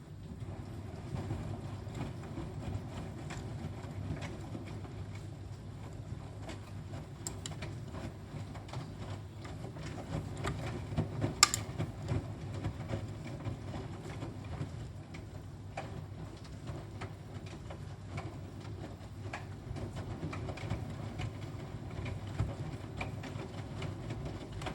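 Washing machine on a 40° cottons wash, the drum turning the laundry: a steady low hum with churning water and scattered light clicks, and one sharp click about eleven seconds in.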